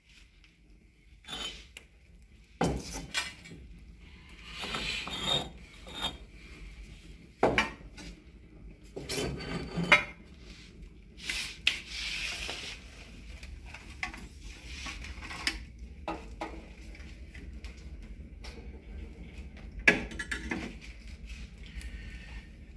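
A fireplace rotisserie being fitted in place: metal parts scraping, knocking and clinking in short irregular spells, with a few sharper knocks.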